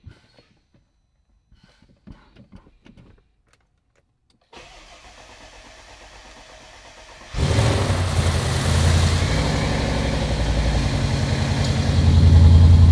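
Audi RS6 C7's 4.0-litre twin-turbo V8 is started on its first start after reinstallation: a faint steady hum comes on about four and a half seconds in, then the engine catches suddenly about seven seconds in and settles into a steady idle that gets louder about twelve seconds in.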